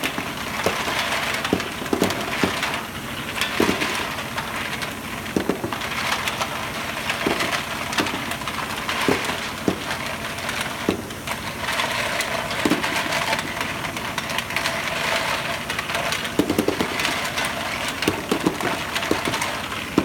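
Small white plastic parts tumbling and clattering inside a rotating dial feeder drum: a dense, continuous rattle with irregular heavier knocks.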